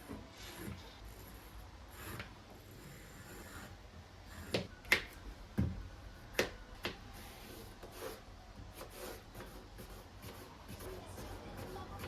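Rubbing and handling noises, with a handful of sharp knocks clustered around the middle.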